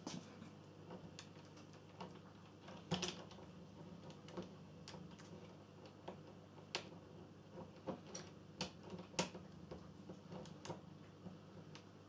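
Lock pick working inside a door's profile cylinder lock: faint, irregular metallic clicks and scrapes as the pins are probed, with a steady low hum underneath.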